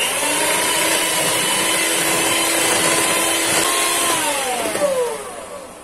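Electric hand mixer running with its beaters whipping double cream in a bowl: a steady motor whine that, about four seconds in, slides down in pitch as the mixer slows and dies away near the end.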